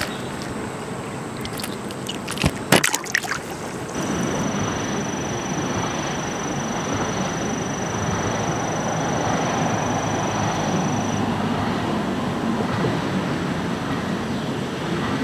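A few sharp clicks and knocks in the first three seconds, then a steady rushing outdoor background noise with a thin, faint high whine running through its middle part.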